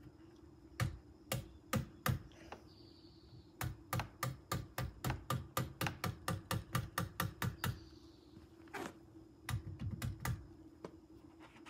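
Ratchet buckle on a Rockymounts Tomahawk roof bike rack's wheel strap being cinched tight. It gives a few sharp clicks, then a fast run of about four clicks a second for some four seconds, then a few more clicks.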